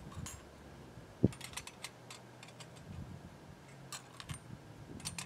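Scattered light clicks and crackles from a small twig fire in a little metal wood-burning stove as sticks are tended, with one dull knock about a second in.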